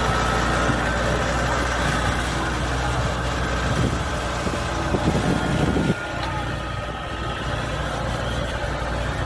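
Kubota combine harvester's diesel engine running steadily, with louder rough noise for a couple of seconds before the engine sound drops and gets quieter about six seconds in.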